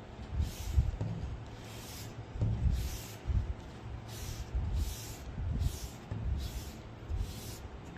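Rhythmic back-and-forth scrubbing or rubbing strokes on a part being restored, about one stroke a second, each with a hiss and a dull low knock.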